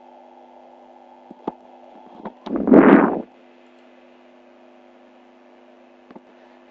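Steady low electrical hum with a few faint clicks, and one short loud rush of noise about two and a half seconds in that lasts under a second.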